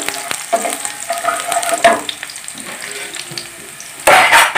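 Cashews, raisins and whole spices sizzling in hot ghee in a non-stick pan, with a wooden spatula stirring and scraping for about the first two seconds, then a quieter sizzle. A loud, brief rush of noise comes near the end.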